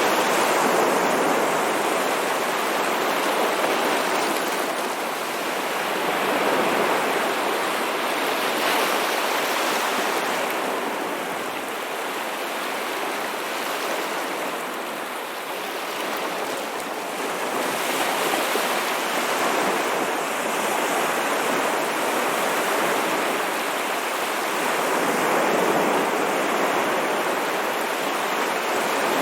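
Ocean waves washing onto a shore: a continuous rush of surf that swells and eases every several seconds.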